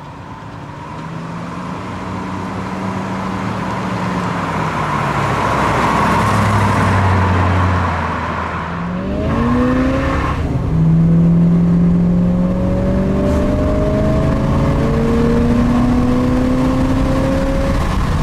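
A 1968 Dodge Charger R/T's 440 cubic-inch V8 running as the car approaches, growing louder. Then, heard from aboard the moving car, the engine revs up through the automatic transmission's gears: one upshift about ten seconds in, then a slow, steady climb in pitch as the car gathers speed.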